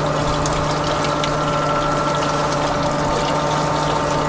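A small motor humming steadily at one unchanging pitch, over a wash of water noise.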